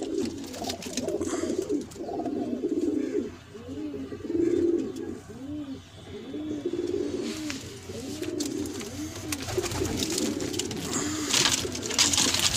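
Domestic pigeons cooing over and over in low, rounded, rising-and-falling coos. Near the end comes a burst of rustling and wing flutter as a pigeon is handled.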